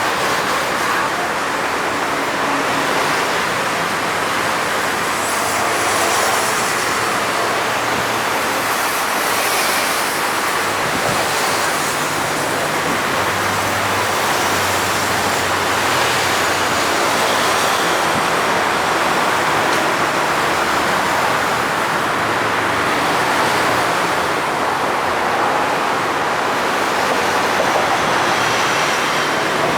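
Heavy diesel machinery running steadily as a loud, even rushing noise, with a low engine hum that wavers in pitch midway.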